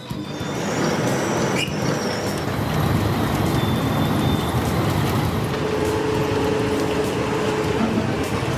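Heavy machinery running: a dense, steady mechanical din that swells over the first second and then holds.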